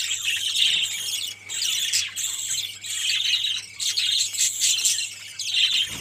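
Budgerigars chattering and chirping, a steady high-pitched twittering with brief dips.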